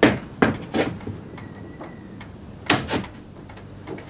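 A series of sharp knocks and clunks: three in quick succession in the first second, then two more close together about three seconds in, with a faint high steady tone between them.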